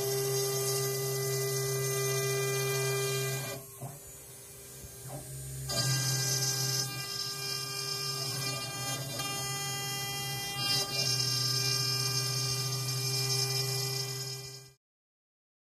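The 2.2 kW spindle of a Workbee CNC router running steadily as a V-bit engraves a design into a wood board, a hum with a whine on top. The sound drops for about two seconds around four seconds in, then comes back, and it cuts off suddenly near the end.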